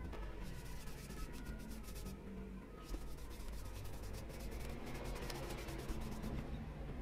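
Bristle paintbrush brushed over a wooden hand plane body, applying wood stain in rapid scratchy strokes, with a brief pause a little past two seconds in.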